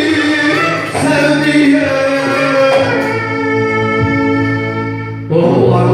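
Turkish uzun hava: a voice singing long drawn-out notes over a steady low instrumental accompaniment, with a louder new phrase coming in near the end.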